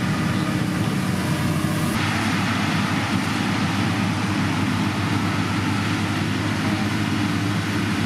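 Motor graders' diesel engines running steadily under load while spreading gravel. The higher sound shifts about two seconds in.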